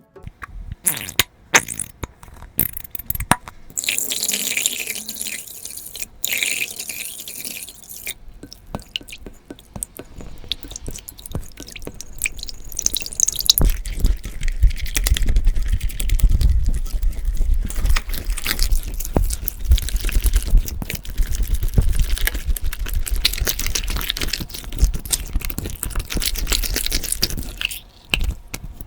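Hands squeezing and working slime close to the microphone: a dense run of wet clicks, pops and squelches. A crisper crackling stretch comes a few seconds in, and the squishing turns heavier and deeper in the second half.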